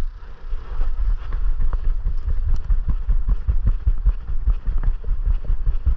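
A camera strapped to a running dog's harness, jolted by its strides: rapid, irregular low thumps and knocks, several a second, over steady rubbing and wind hiss.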